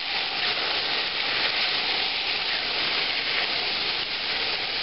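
Sliced onions and pork loin sizzling as they brown in an enameled cast-iron Dutch oven: a steady, even frying hiss, the onions at the caramelizing stage.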